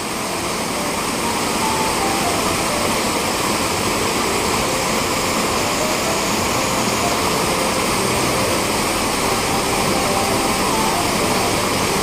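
Small waterfall in a rocky stream, white water pouring over rocks into a pool with a steady, even rushing.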